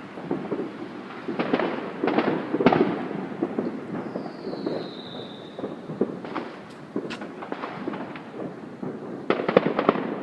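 Fireworks going off in rapid clusters of pops and crackles. The densest bursts come about two to three seconds in and again near the end.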